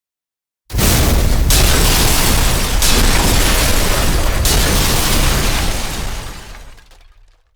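Explosion sound effect: a sudden heavy blast with deep rumble, with further bursts about 1.5, 3 and 4.5 seconds in, then fading out over the last second and a half.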